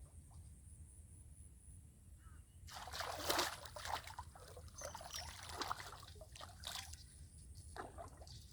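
River water splashing and trickling in an uneven run of splashes, starting about a third of the way in, with a shorter splash near the end.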